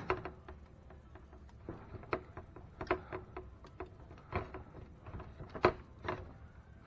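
Irregular sharp clicks and knocks of hand tools working on the metal and plastic parts of a Traxxas T-Maxx 3.3 RC truck, roughly one every half second to second.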